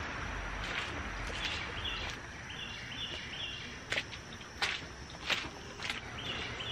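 Boot footsteps on the coop's dirt and shavings floor, four sharp steps about two-thirds of a second apart in the second half, over a background with short repeated high chirps.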